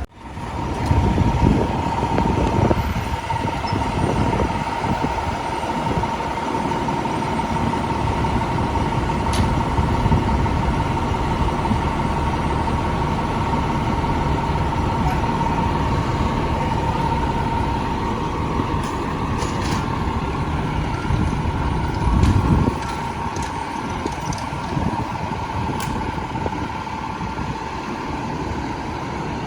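Heavy fire-truck engine running amid street traffic, with a steady high tone held throughout and a brief louder low burst about 22 seconds in.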